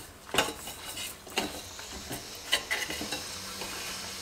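Steel spoon stirring dry wheat rava and split moong dal in an open stainless steel pressure cooker, scraping and clinking against the pot about three times, roughly a second apart, over a faint steady hiss.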